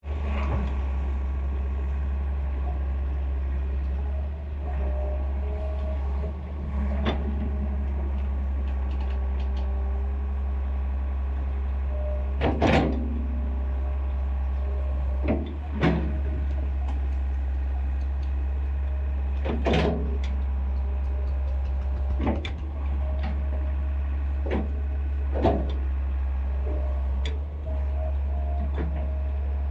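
Excavator engine running with a steady low drone, with a few sharp clanks and knocks spread through it.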